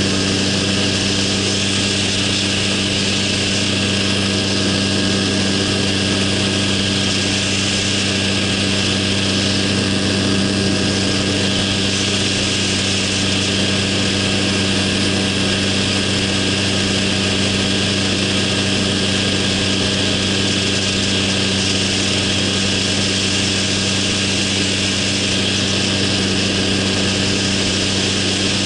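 Minitrike's small engine and propeller running at a steady cruise drone, with wind rushing over the microphone.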